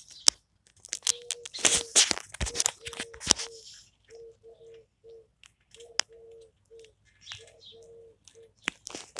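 Plastic construction-toy parts handled and clicked together: sharp clicks and rattles, busiest in the first few seconds. Behind them, a short pitched note repeats steadily many times.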